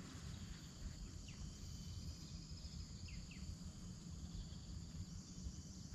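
Faint steady high drone of insects over a low rumbling background, with a few short high chirps that fall in pitch, about a second in and twice near the middle.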